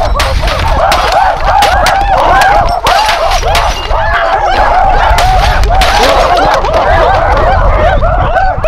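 Many voices hooting and shrieking monkey-style at once, overlapping rises and falls in pitch several times a second. Sharp cracks and crashes come through it as an old CRT computer monitor is smashed on asphalt.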